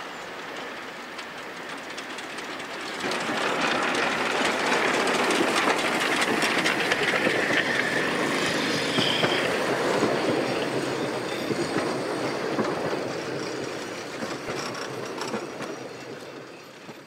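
Narrow-gauge steam train passing close by: rumbling carriages and wheels clicking over the rail joints grow suddenly louder about three seconds in, with brief high wheel squeal, then fade out near the end.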